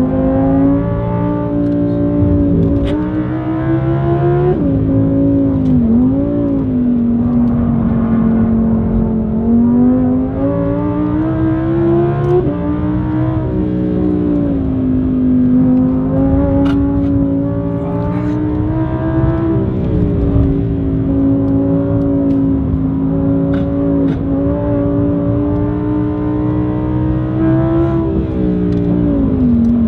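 Audi R8's V10 engine through an ASG aftermarket valve exhaust, heard loud from inside the cabin while being driven hard: the engine note climbs steadily through the revs and drops back at gear changes and lifts, over and over.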